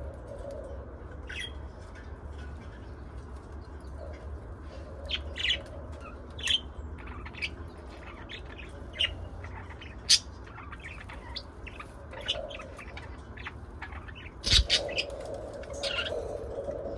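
Pet budgies and lovebirds chirping and squawking in short, scattered calls over a steady low hum, with a sharp knock about fourteen and a half seconds in followed by a quick burst of calls.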